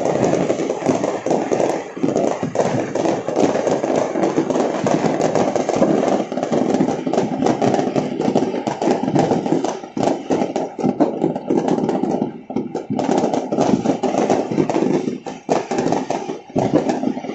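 Dense, continuous crackling and banging of many fireworks and firecrackers going off at once across a city, the blasts running into each other, with a few brief lulls in the second half.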